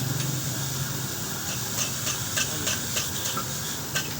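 A run of short, sharp clicks, about three a second, starting about a second and a half in, over a steady hiss; a low hum is heard during the first second.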